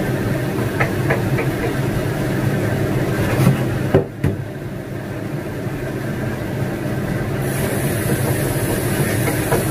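Kitchen range hood fan running with a steady low hum, with a few knocks and clicks of handling, the loudest about four seconds in. About seven and a half seconds in, a tap starts running water into a plastic container, adding a steady hiss.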